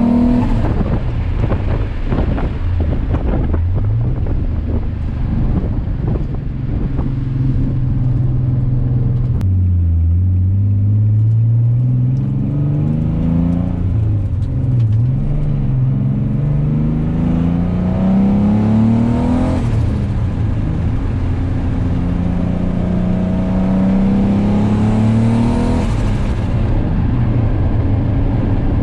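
Twin-turbocharged Nissan 350Z's V6 engine pulling under load, its pitch climbing steadily and then dropping sharply a few times before climbing again.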